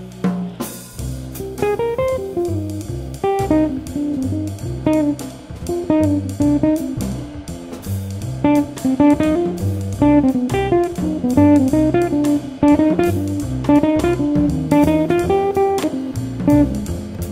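Instrumental jazz: an electric or acoustic guitar plays a fast line of single plucked notes over walking bass and drums with ticking cymbals. It starts about half a second in, after a held chord cuts off.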